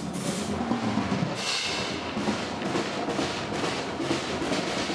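A drum kit being played with a steady beat.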